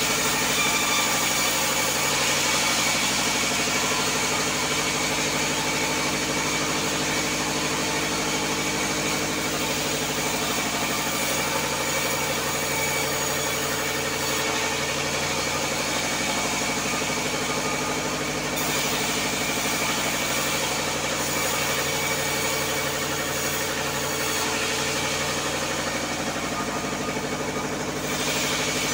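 Vertical band saw running steadily while planks are fed through it by hand: a constant machine hum with a hiss of sawing over it. The hiss thins out twice for a few seconds, about halfway and again near the end.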